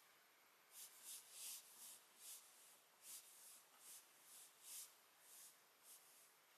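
Faint, soft rustles of a cat's fur being rubbed, a quick stroke about every half second.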